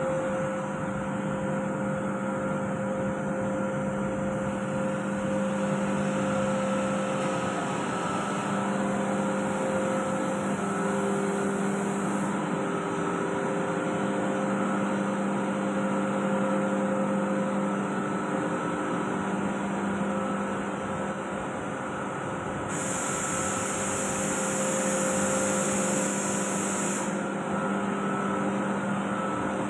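COAIRE AS102 oil-lubricated rotary screw air compressor running steadily: a continuous mechanical hum with several steady tones over a hiss. The high hiss gets stronger for a few seconds late on.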